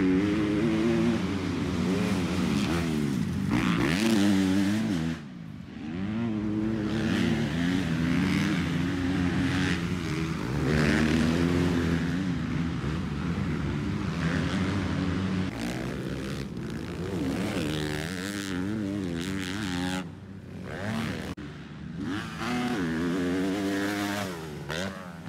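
Motocross dirt bike engines revving as they ride the track, the pitch climbing and falling again and again with throttle and gear changes, easing off briefly about five seconds in and again near twenty seconds.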